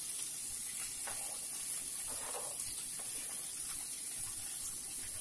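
Sliced beef, bell peppers and onions sizzling faintly in a frying pan as it warms, with a couple of soft sounds as the vegetables are pushed off a cutting board into the pan.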